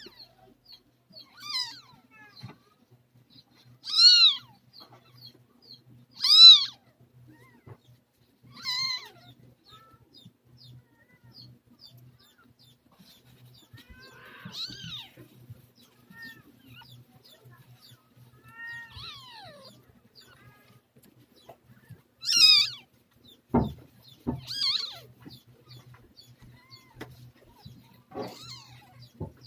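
Newborn kitten mewing: about ten thin, high calls, each rising and then falling in pitch, spaced out with pauses of a second or several, and a few fainter ones between. A brief low knock comes a little after the middle.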